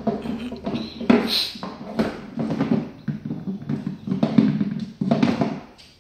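A puppy tussling with its blue toy chicken under a wooden shelf: a run of irregular knocks and scuffles, several a second, fading out near the end.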